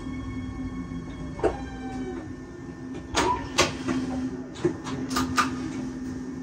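Inside an electric regional train's driver's cab: a steady electrical hum, with a handful of sharp clicks and knocks spread over a few seconds.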